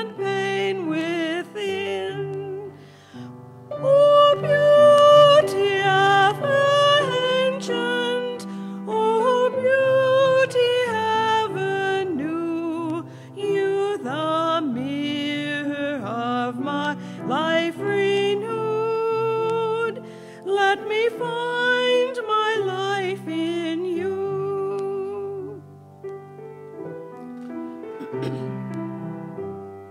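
A hymn sung by a solo voice with vibrato, holding long notes over sustained keyboard chords.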